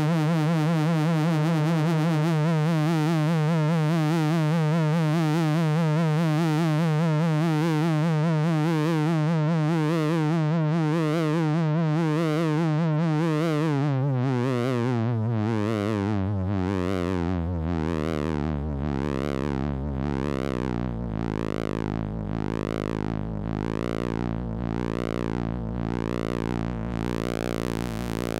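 Handmade 9-volt CMOS square-wave synthesizer droning with a fast automated pulse-width wobble. About halfway through, the pitch slides down into a lower drone as a knob is turned, and an automated filter sweep opens and closes a little more than once a second.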